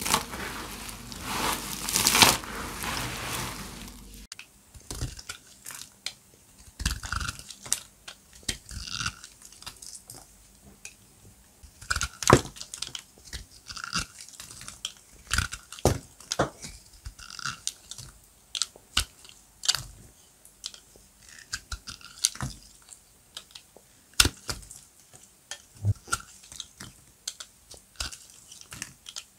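Dry glam soap crunching as a knife cuts into it. For the first few seconds there is a dense crumbling crunch, then a run of separate crisp cracks, roughly one a second.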